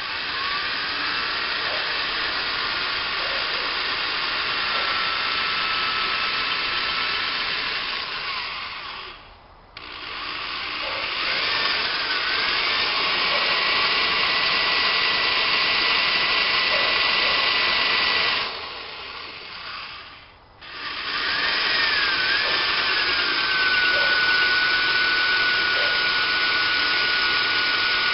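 Electric drill boring a small starting hole into a homemade gas forge's body. It runs in three long stretches, the motor whine rising as it spins up each time, with two brief pauses in between.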